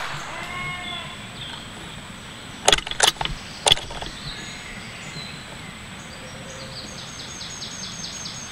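A few sharp clicks and knocks in quick succession about three seconds in, over woodland birdsong, with a fast repeated bird call near the end.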